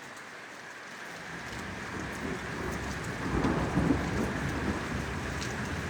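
Heavy rain falling steadily, with a roll of thunder rumbling up from about a second in and at its loudest around three to four seconds in.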